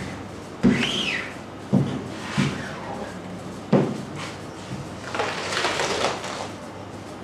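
A wooden screen-printing frame and mesh knocking and pressing against a tabletop as ink is worked through the screen: four sharp knocks over about three seconds, with a brief squeak near the first. Then a longer rustle as the inked screen is lifted off the fabric.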